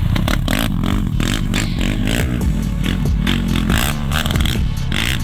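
ATV engine running with its revs rising and falling, along with scraping and clattering noises.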